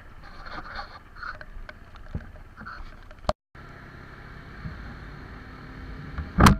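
Motorcycle running while riding, a steady low rumble with wind noise on the microphone. The sound drops out completely for a moment about halfway, and a sharp loud knock comes near the end.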